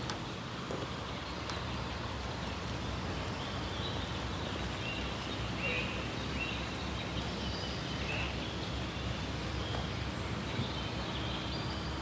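Outdoor ambience: a steady low background hum with scattered faint bird chirps.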